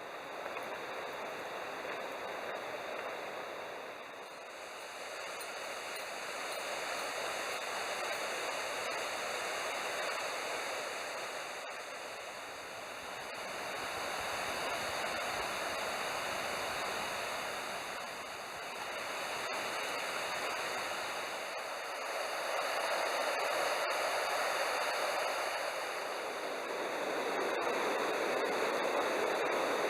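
Steady rushing of flowing water, like a stream, swelling and easing slowly every several seconds.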